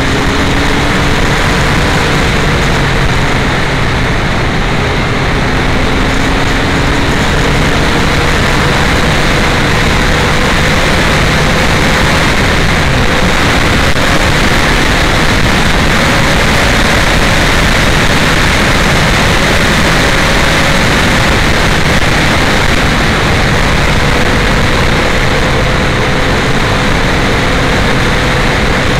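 Wind rushing over an uncovered camera microphone on a moving Yamaha FZ1 motorcycle, loud and steady, with the bike's inline-four engine running underneath at a fairly constant note that drifts a little in pitch.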